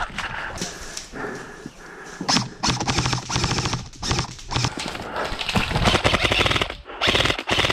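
Airsoft rifle firing in rapid full-auto bursts, a fast run of clicks repeated several times with short pauses, at a player who is then called hit.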